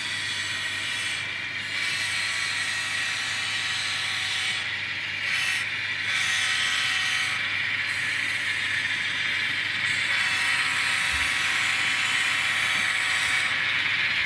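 Kato N scale model container train running on the layout track: the steady mechanical whir of the small locomotive motor and its running gear, slowly growing louder.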